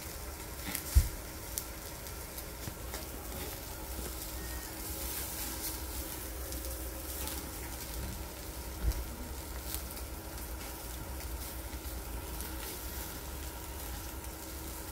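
Slices of meat sizzling on a wire-mesh grill over burning charcoal, with scattered crackles and a steady low rumble underneath. A sharp thump comes about a second in and a smaller one near nine seconds.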